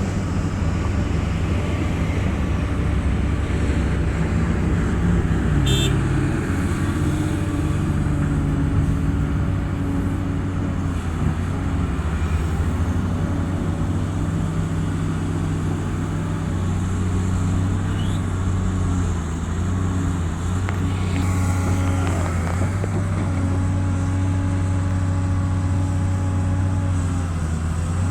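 Heavy diesel engines of a large excavator and dump truck running steadily, the low engine note shifting slightly in pitch now and then.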